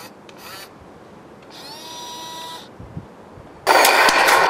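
Small electric motors of a radio-controlled model Tiger I tank whining. A short rising whine settles into a steady tone, then a much louder buzzing starts about three and a half seconds in.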